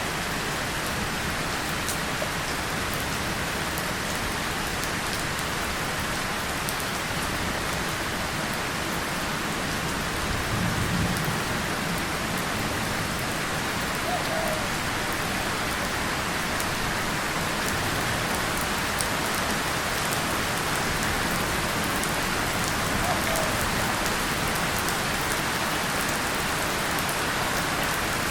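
Steady rain pattering on a tin surface and leaves, with a brief low rumble of distant thunder about ten seconds in.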